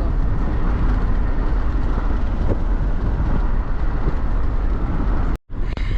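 A moving vehicle's steady road and engine rumble, heavy at the low end. It breaks off for an instant near the end.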